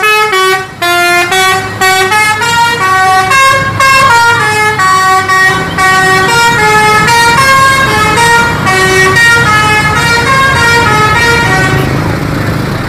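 Musical multi-tone bus horn (a 'telolet' horn) on a tour bus playing a tune of stepped notes, loud and sounding for about twelve seconds before fading near the end, with a low traffic rumble underneath.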